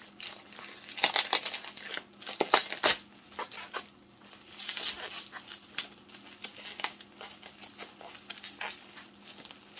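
Packing material crinkling and crackling by hand as an item is unwrapped, in irregular bursts with a few sharper crackles, the loudest about a second in and again around two and a half to three seconds in.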